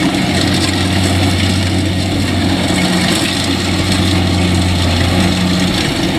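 Kubota DC-70 crawler combine harvester's diesel engine running hard and steady under load while cutting rice through deep mud, with a constant low hum and a wash of machinery noise.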